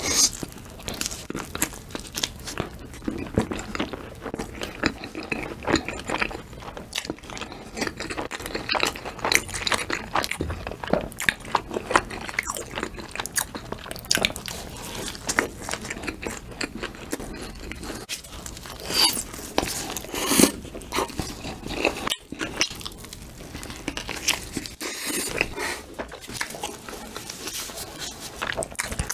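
Close-miked crunching bites and chewing of crispy breaded fried food dipped in sauce, with many sharp, irregular crackles.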